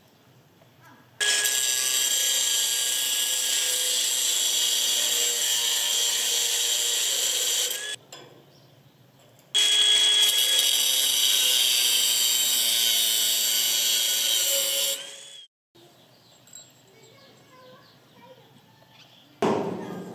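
Abrasive cut-off disc on a power tool cutting through a metal threaded rod: a loud, steady, high whine in two stretches of about six seconds each, separated by a short pause. A short knock near the end.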